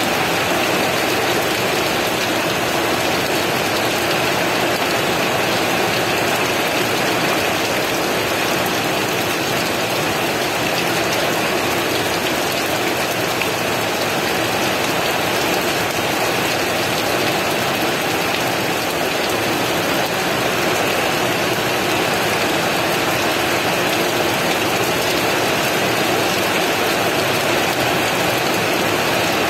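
Heavy rain falling in a steady, even rush, with no thunder.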